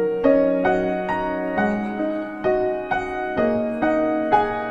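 Background music: a slow piano melody, single notes struck about twice a second over held lower notes.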